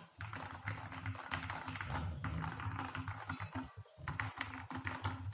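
Fast typing on a Keychron K2 mechanical keyboard with lubed Gateron Brown tactile switches, SA-profile keycaps and dampening foam inside the case: a dense run of key clacks, with a brief pause nearly four seconds in.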